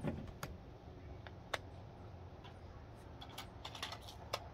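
A few light, irregular clicks and clacks of a 12-gauge ATI Bulldog shotgun being handled as a less-lethal shell is loaded into it.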